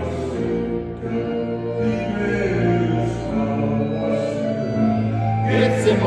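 Two men singing a slow song in a reverberant church, accompanied on a Roland V-Piano digital stage piano.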